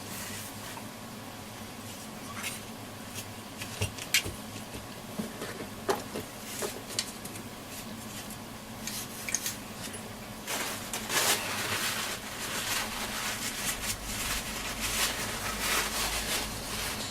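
Toothbrush scrubbing flux residue off a circuit board with isopropyl alcohol: scattered light strokes and clicks at first, then heavier, steadier scrubbing from about ten seconds in.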